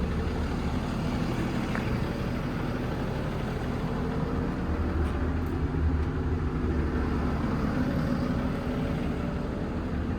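Cummins ISB 6.7-litre inline-six turbo diesel of a Freightliner M2 idling steadily.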